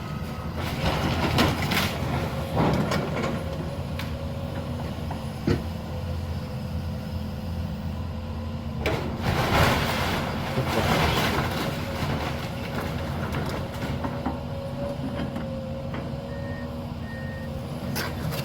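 A heavy diesel demolition machine runs steadily while a house is torn down, with two spells of crashing and crunching debris, the second and louder about nine seconds in. A reversing beeper starts up near the end.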